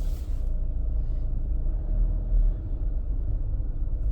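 Car cabin noise: a steady low rumble of engine and road heard from inside the car.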